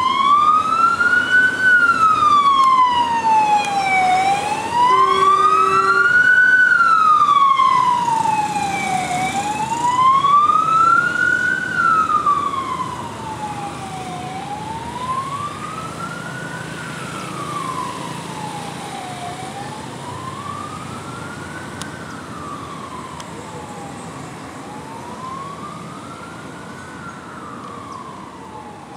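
A siren wailing, its pitch sweeping slowly up and down about once every five seconds. It is loud at first and grows fainter after about twelve seconds.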